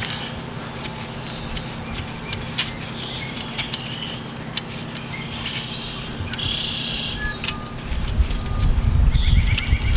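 Birds chirping and insects in the background, over scattered light clicks of a hand ratchet and metal parts on a transmission case. A low rumble rises near the end.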